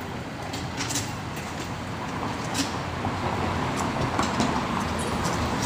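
Ambient noise of a busy noodle shop: a steady low rumble with scattered light clicks and clinks.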